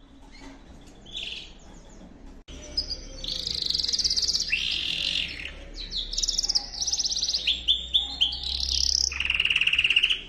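Yorkshire canary singing a long song of fast trills and warbled phrases. It starts softly about a second in, is loud from about two and a half seconds in, and stops abruptly near the end. This is its song at the start of the build-up to the breeding season.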